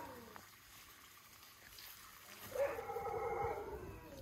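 A dog whining: one drawn-out call about two and a half seconds in, lasting about a second.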